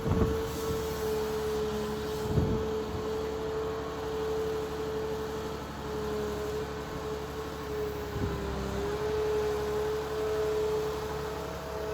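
Excavator running with a steady whine over a low engine rumble, the whine dipping briefly in pitch about eight seconds in, with a couple of faint knocks.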